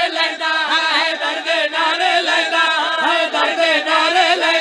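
Crowd of men chanting together in unison, many voices at once, taking up a repeated devotional refrain.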